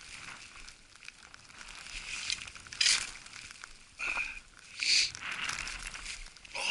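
Snow crunching and crumpling as a climber moves down a snowy slope, with two louder crunches, at about three seconds and five seconds, over a steady crackle.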